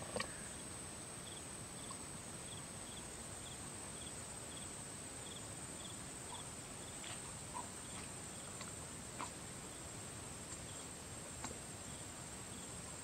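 Outdoor forest-floor ambience: insects chirping in short regular pulses, about two a second, fading out after roughly the first half, over a steady high-pitched whine. A few faint rustles and clicks come from a young monkey moving through leaves and undergrowth, the sharpest right at the start.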